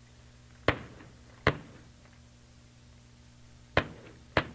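Blasting charges going off one after another: four sharp blasts, two in quick succession early and two more near the end, each with a short echoing tail.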